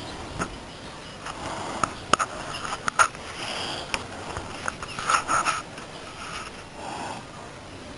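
Young fighting cockerels sparring: irregular scuffling, rustling and sharp knocks of pecks and wing beats, thickest about two seconds in and again around five seconds.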